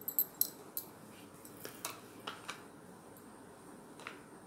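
Scattered light clicks and taps as a knob of butter is put into a nonstick frying pan with a spoon, several in the first second, a few more about two seconds in, and one near the end.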